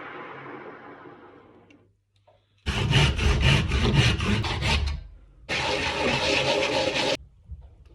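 A turning tool rubbing against wood spinning on a lathe, in two loud stretches of about two seconds each that start and stop abruptly. Before them, a fainter sound dies away over the first couple of seconds.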